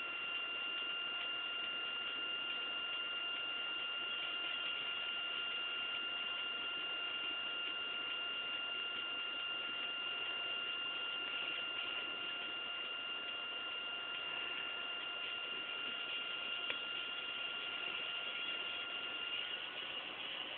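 A steady high-pitched whine holding one pitch, with a fainter overtone above it, over a constant hiss. No music or voice.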